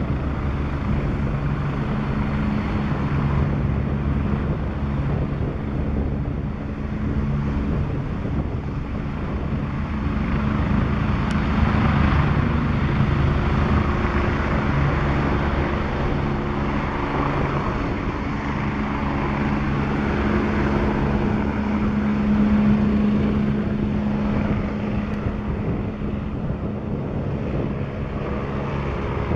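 Agusta A109S Grand twin-turbine helicopter lifting off and climbing away: steady rotor and turbine noise with a low hum, loudest in the middle stretch as it rises and moves off, then easing a little as it climbs.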